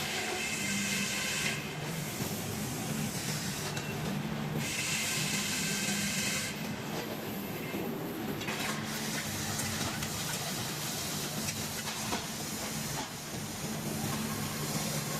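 Sawing machinery running steadily with a low hum, and a hissing stretch as the blade cuts through wood, twice, each about one to two seconds long.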